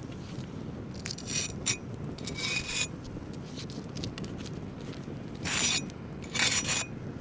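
Crisp tempura crust on fried ostrich heart crunching and scraping as the pieces are handled and cut with a large knife on a wooden board, in five short bursts, the last two near the end.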